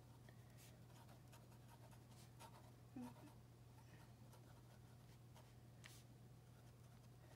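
Faint scratching of a fountain pen nib on notebook paper as a word is handwritten in short strokes.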